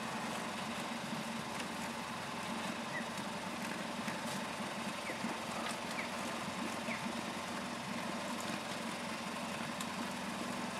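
Steady engine hum, running evenly, with a few faint short chirps over it.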